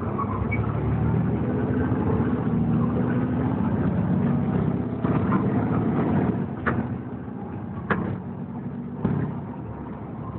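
Volvo B7TL double-decker bus's six-cylinder diesel engine heard from the upper deck, working under load as the bus accelerates. It eases back after about six seconds, and three sharp knocks or rattles come in the second half.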